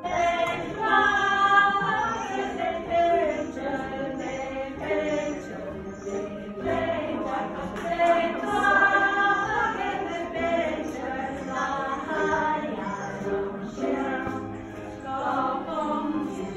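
A small group of women singing a song together, accompanied by a ukulele.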